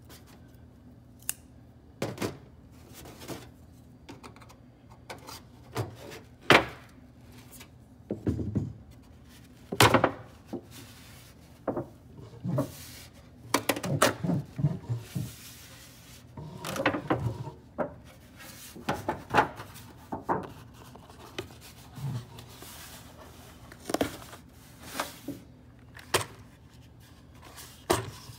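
Irregular metallic scrapes, clicks and knocks as a sealed steel ammunition tin is worked open by hand, followed by cardboard ammunition boxes being rubbed and shifted as they are lifted out of the tin.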